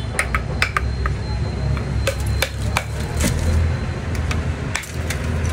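Stall clatter: irregular sharp clicks and knocks of steel and glass on a steel counter, over a steady low rumble of background traffic.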